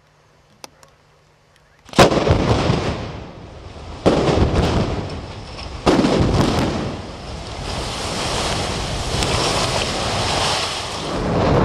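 Explosive demolition of concrete tower blocks. Three sharp blasts go off about two seconds apart, the first about two seconds in, each trailing into a rumble. A long rumble of the towers collapsing and debris falling follows.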